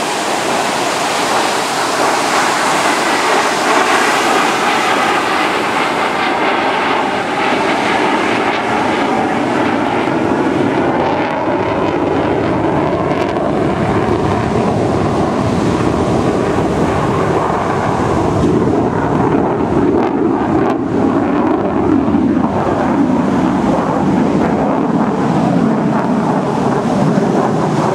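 Jet engine noise from an F/A-18 Hornet's twin jet engines during a display pass at an airshow. A loud, hissing noise in the first few seconds thins out after about six seconds into a deeper, steady rumble.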